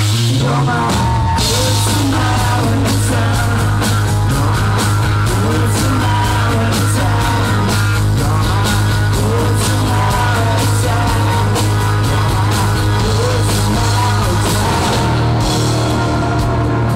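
Live rock band playing: drums, bass, electric guitars and keyboards, with a lead line bending up and down in pitch over a steady low bass note. A rough, shoddy-sounding club recording.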